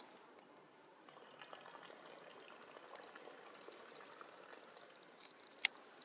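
Faint wet squishing and crackling of a young monkey eating soft mango pieces, with one sharp click near the end.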